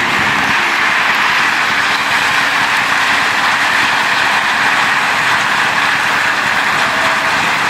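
Heavy rain mixed with hail pouring down, a loud steady hiss with no let-up.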